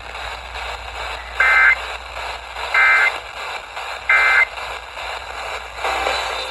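Emergency Alert System end-of-message data tones: three short bursts of buzzing two-tone data, about 1.3 seconds apart, over steady radio hiss, marking the end of the severe thunderstorm warning broadcast.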